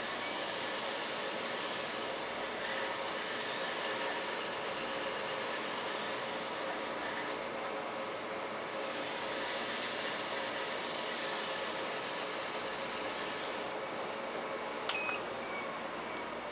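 Record Power Harald wood lathe running with a steady motor hum while a gray 3M abrasive pad rubs the spinning walnut handle between finish coats, a steady hiss. The rubbing hiss eases off a few seconds before the end, leaving the lathe running.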